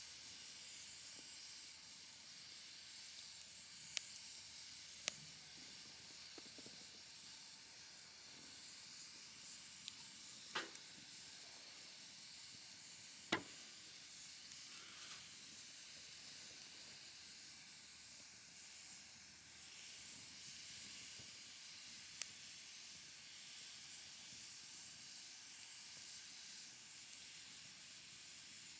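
Wood campfire burning in a fire pit: a steady hiss with a handful of sharp, isolated crackling pops, the loudest about thirteen seconds in.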